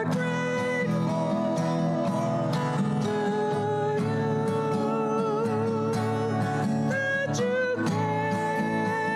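A praise song sung with guitar accompaniment, the voice holding long notes with a slight waver.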